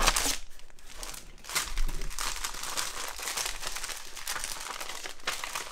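Paper and packaging rustling and crinkling as items are lifted out of a cardboard shipping box by hand. It comes in irregular handling noises, loudest at the start and again about two seconds in.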